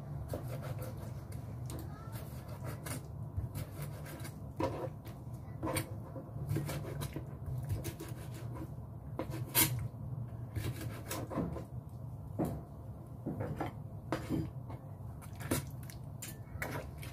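Kitchen knife cutting squid into squares on a plastic cutting board: irregular sharp knocks of the blade striking the board. Near the end the knife pushes the cut pieces onto a plate.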